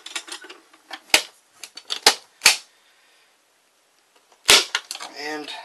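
Steel ammo can's lid being shut and its latch clamped down: a few sharp metal clacks, then a loud clank about four and a half seconds in as the can is handled.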